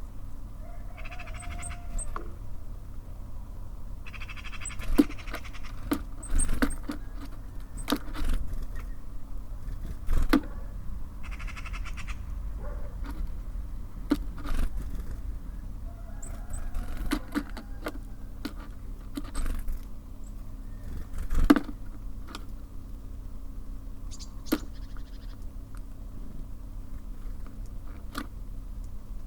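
Small birds at a bird feeder: scattered sharp taps and knocks as they land and peck, with a few faint short high chirps, over a steady low hum of distant traffic.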